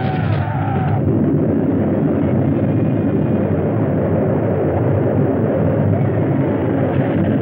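Film sound effect of an eruption: a loud, steady low roar of noise as smoke and steam spout from the rock. Background music cuts off about a second in.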